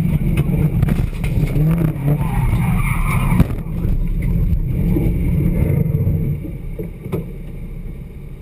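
Polonez 2000 Rally car's engine running, heard from inside the cabin, with a single sharp knock about three and a half seconds in. After about six seconds the engine sound fades to a lower, quieter level.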